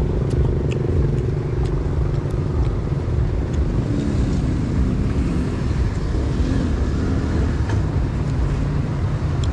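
Steady low engine rumble of road traffic and motorbikes, with a few light clicks over it.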